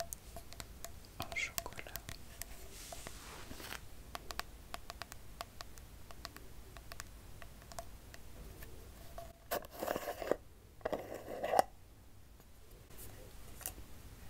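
Fingernails tapping and scratching on cosmetic jar lids and labels, making many small, sharp clicks. A little after 9 seconds in come two louder, rougher scraping sounds.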